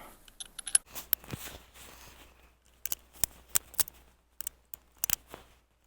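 Sharp metallic clicks of a Cimarron .45 Colt single-action revolver's action being worked by hand while unloaded: the hammer cocking and the cylinder ratcheting round, a dozen or so clicks in irregular groups with a short pause between them. The action is being checked because the hammer stops short of falling fully forward, so the firing pin does not strike hard enough and rounds misfire.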